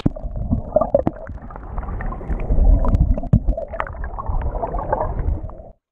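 Stream current and air bubbles heard underwater: a muffled, rushing gurgle with scattered clicks and knocks, cutting off suddenly near the end.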